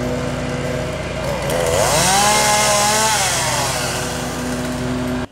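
Gasoline chainsaw running at idle, then revved up about a second and a half in. It holds high and cuts into wood with a hiss of chain noise for over a second, then drops back toward idle. The sound cuts off suddenly at the end.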